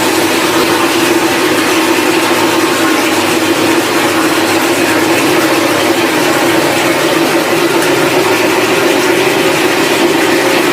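Factory machinery running steadily: a loud, unbroken mechanical din with a constant low hum.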